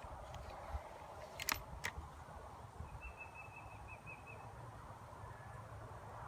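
A bird's short trill of rapid high chirps, after two or three sharp clicks about a second and a half in, over a steady low background.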